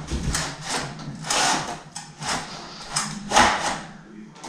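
A newly hung window blind being handled at its headrail, with its pull cord drawn through: a quick series of scraping rustles, about two or three a second.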